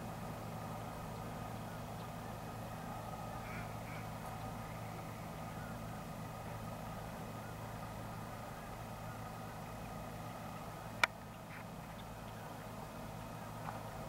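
Faint ducks quacking on the pond over a steady low hum, with one sharp click about eleven seconds in.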